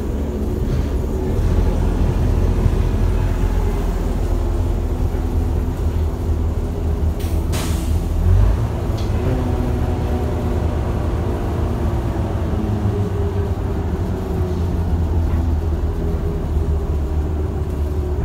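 Rear-engined Daimler Fleetline double-decker bus on the move, heard from inside the lower deck: a steady low engine drone whose note shifts as the bus changes speed. A short hiss of air comes about seven seconds in.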